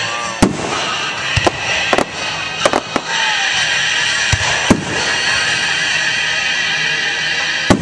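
Aerial fireworks shells bursting: about ten sharp bangs at uneven intervals, several in quick pairs, with the loudest about half a second in, near the middle and just before the end. Music plays steadily underneath.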